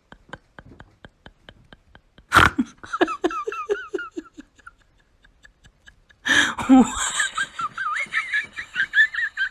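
A person laughing hard in two bouts: a loud burst of laughter about two seconds in that trails off, then a longer fit of laughing from about six seconds in to the end. Before the first laugh there is a rapid, regular ticking, about four or five ticks a second.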